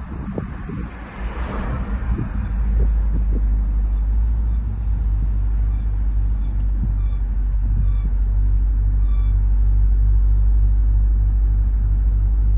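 Jeep Grand Cherokee Trackhawk driving, a steady low rumble that grows louder about two seconds in. Through the middle comes a run of faint, short, high squeaks, repeating a little under once a second.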